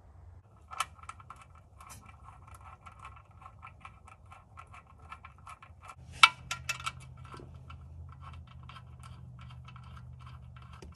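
Small metallic clicks, taps and scrapes from hands working at the shift solenoids' clips and bolts on an exposed automatic transmission valve body, with one sharper click about six seconds in. A faint steady hum sets in around the same point.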